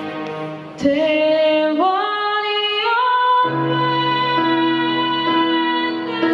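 A boy singing solo into a microphone over a soft instrumental accompaniment. His voice comes in just under a second in, climbs step by step, then holds one long high note.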